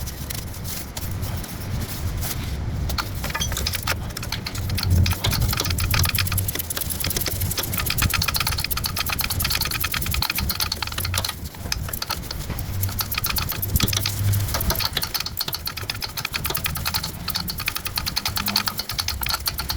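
Ratchet wrench clicking rapidly and continuously as the steering rack's mounting bolts are run in and tightened, over a low hum.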